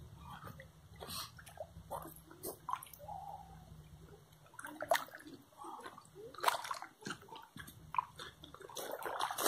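Lake water gently lapping and trickling against a pebble shore, in small irregular splashes, with a low wind rumble on the microphone that dies away about halfway through.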